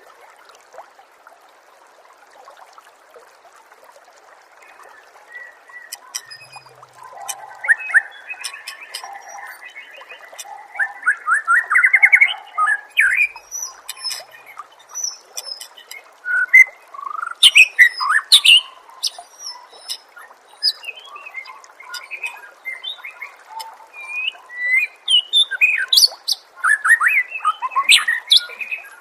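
Songbird song from a masteran training recording: bursts of varied chirps, whistles and quick trills, starting about six seconds in, over a steady faint hiss.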